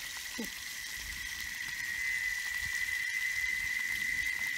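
A steady high-pitched insect drone that grows louder about two seconds in, over the hiss of fish frying in a pan over a wood fire.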